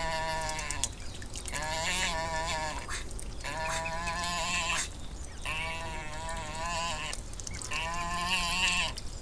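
Great crested grebe calling from its nest: five drawn-out, wavering calls about a second long, roughly every two seconds.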